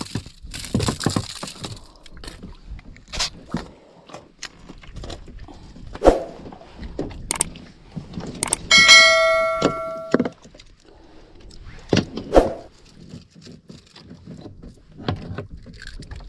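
Scattered knocks and clatter from a fish being landed and handled on a wooden boat deck. About nine seconds in, a bright bell chime rings for about a second and a half: the notification-bell sound effect of a subscribe animation.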